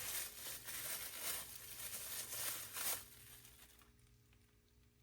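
Packaging crinkling and rustling as a boxed air compressor is handled, stopping about three seconds in.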